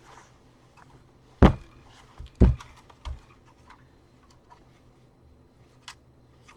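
Small parts and tools being handled on a workbench: two sharp knocks about a second apart, a softer one just after, and scattered light clicks and taps.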